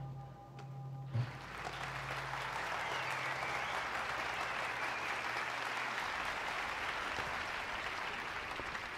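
Audience applauding, starting suddenly about a second in and carrying on steadily; before it, a low steady hum.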